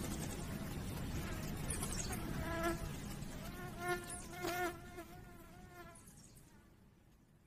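A flying insect buzzing, its pitch wavering as it moves, over a steady background hiss; the sound fades away near the end.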